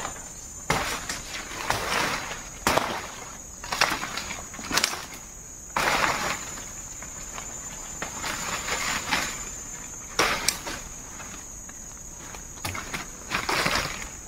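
A steady high-pitched insect drone, with irregular rustles, scrapes and knocks from someone moving about and handling things.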